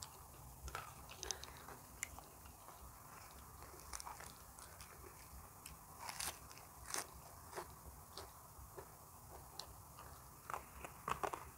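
A person biting and chewing crunchy fresh leafy vegetables: scattered short crunches and mouth clicks, the sharpest about six and seven seconds in and a quick run of them near the end.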